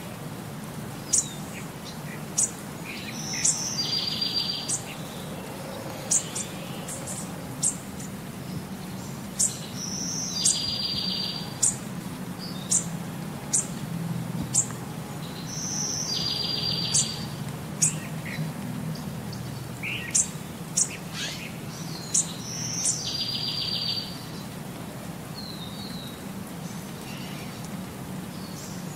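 Birdsong soundtrack: sharp high chirps and a trilled call repeating about every six seconds, like a looped nature recording, over a low steady hum.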